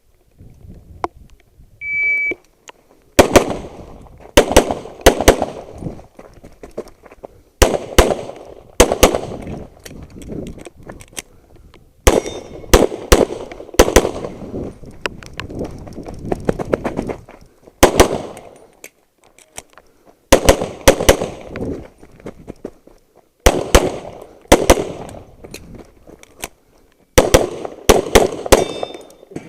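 An electronic shot-timer start beep about two seconds in, then a handgun fired in quick pairs and short strings of shots, with pauses between the groups, each shot ringing with a short echo.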